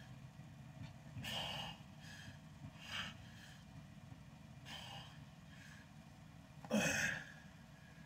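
A man's forceful exhales during behind-the-head barbell presses, four breaths about two seconds apart, the last one near the end louder and partly voiced. A low steady rumble runs underneath.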